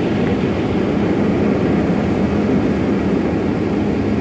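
Automatic car wash machinery running, heard from inside the car's cabin: a steady low rumble with a constant hum.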